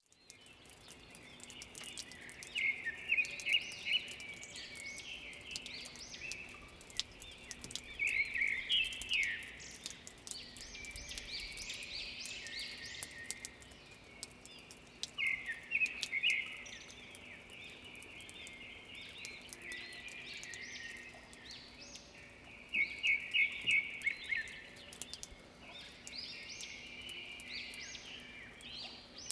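Birds singing after rain: several bird songs repeat in quick chirping phrases, loudest in bursts a few seconds apart, over scattered sharp ticks of dripping water.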